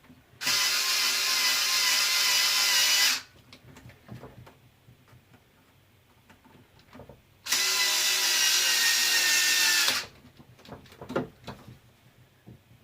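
Cordless power screwdriver running twice, about three seconds and then about two and a half seconds, its motor whine steady while driving screws into the plastic wheelie bar parts. Small clicks of handling between the runs.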